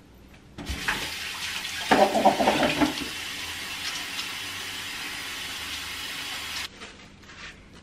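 Kitchen tap running into a sink while hands rinse something under it, with a louder burst of splashing and clatter about two seconds in. The water is turned off about a second before the end.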